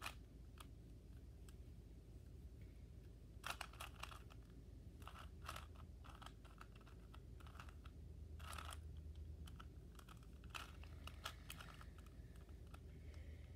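Faint plastic clicking of a Rubik's Cube's layers being turned by hand, in short runs of quick turns with gaps between them.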